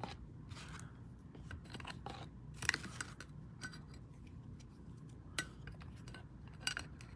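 Scattered light clicks and taps of small objects being handled and set down on a tabletop, with a sharper knock about two and a half seconds in and another about five and a half seconds in.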